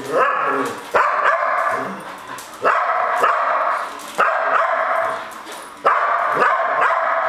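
Border collie barking nonstop: a sharp bark about every one and a half seconds, each one trailing into a high, drawn-out cry that fades before the next.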